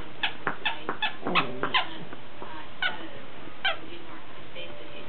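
Small dogs yipping in tug-of-war play over a plush toy. About eight short, high yips fall in pitch; most are bunched in the first two seconds, then two more come spaced out.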